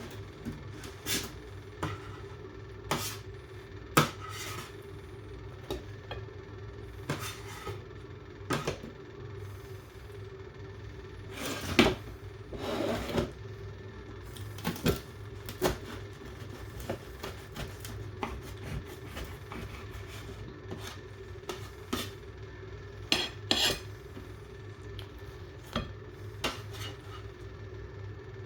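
Irregular clicks, knocks and light clatters of household objects being handled and set down, with a longer scraping rustle about twelve seconds in, over a steady low hum.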